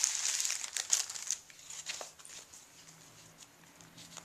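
Paper bags crinkling and rustling as they are handled, for about the first second and a half, then only a few faint rustles.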